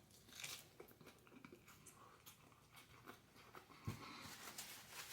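Faint chewing of fried food close to the microphone, with scattered small crunches and mouth clicks and one louder knock about four seconds in.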